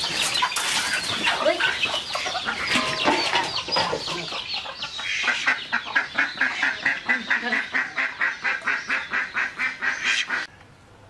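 Domestic ducks quacking in alarm as they are caught and held by hand: irregular calls at first, then from about five seconds in a fast, even run of quacks, about five a second, that cuts off suddenly near the end.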